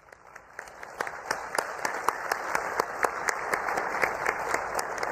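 Audience applause that builds over about the first second into steady clapping, greeting the announcement of a successful satellite launch.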